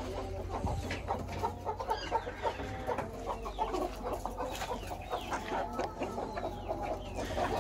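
Desi chickens clucking, several hens calling over one another in short overlapping clucks and chirps.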